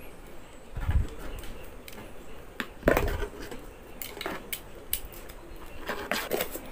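Handling noise from a small plastic camera charger adapter and its USB cable being handled over an open cardboard box: scattered light clicks and rustles, with two heavier knocks about a second in and near three seconds.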